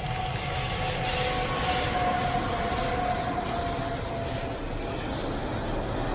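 Electric-hauled container freight train passing close by: a steady rumble and rattle of wheels and wagons on the rails, with a whine from the locomotives that dips slightly in pitch as they go past and fades about five seconds in.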